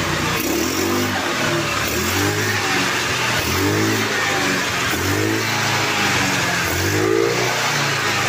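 Rossi Rapid 150 scooter engine, fitted with a 26 mm Keihin carburetor, being revved in repeated throttle blips. The pitch rises and falls back about five times, which checks the throttle response of the newly installed carburetor.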